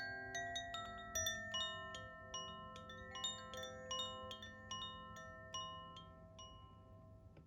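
Koshi Terra wind chime ringing as its clapper strikes the tuned metal rods in quick, irregular strikes, the tones overlapping and ringing on. The strikes thin out near the end and the ringing dies away.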